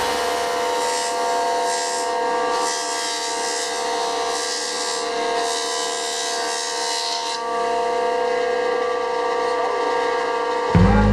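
Jointer running and cutting a maple board: a steady machine whine with the hiss of the cutterhead on the wood coming in surges. The cutting hiss drops away about seven seconds in while the machine runs on.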